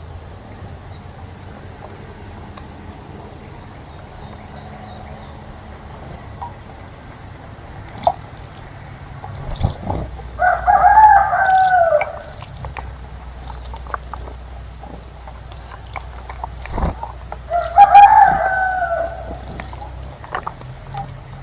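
A rooster crowing twice, each crow about two seconds long and dropping in pitch at the end, the first about ten seconds in and the second near eighteen seconds. Faint high chirps from small birds come between the crows.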